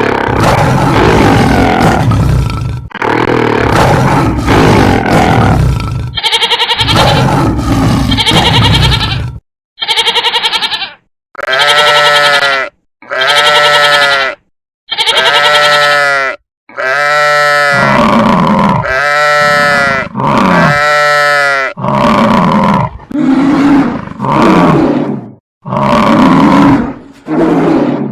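Cartoon animal sound effects: roaring and grunting at first, then a string of separate animal calls about a second each with short gaps, their pitch rising and falling.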